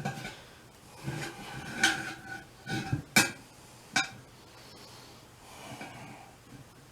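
Steel hand tools clinking and knocking against a metal tire rim, a series of ringing metallic clinks with two sharp knocks about three and four seconds in, then quieter scraping.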